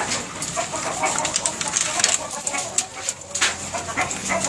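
Caged roosters clucking briefly while feeding, amid scattered tapping and rustling.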